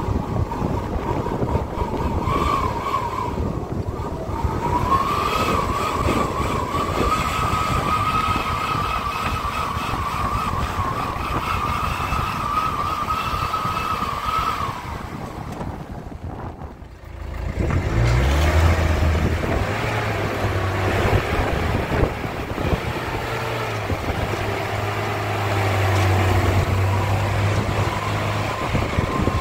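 Zamyad pickup truck driving through deep mud, its engine running with a steady high whine over a dense rumble. After a brief drop about halfway through, the engine runs on at a steady low idle hum.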